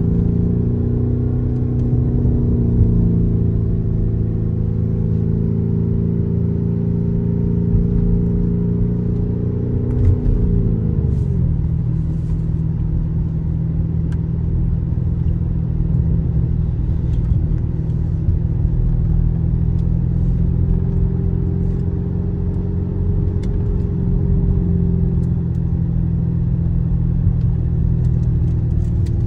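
Lamborghini Urus twin-turbo V8 engine running at steady cruise, heard from inside the cabin; its pitch drops about ten seconds in as the car eases off, then holds steady at a lower tone.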